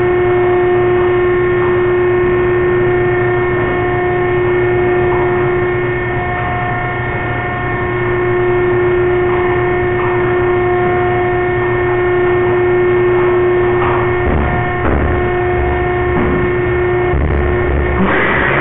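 Steady drone of slaughter-plant machinery, an even hum held on one pitch with fainter overtones above it, with a few low thumps and a louder burst of noise near the end.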